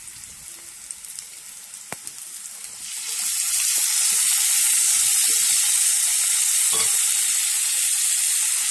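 Hot oil in a kadai sizzling softly under frying onions. About three seconds in, chopped tomatoes go into the hot oil and the sizzle jumps to a loud, steady hiss.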